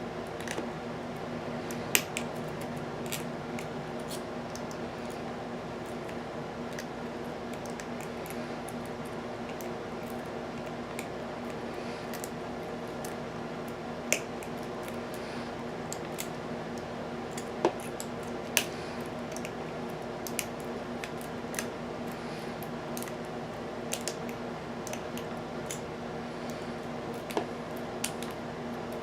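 Lock pick and tension wrench working the pins of an American Series 700 padlock: sparse small metal clicks and ticks, the sharpest about 2 seconds in and a few more in the middle, over a steady background hum.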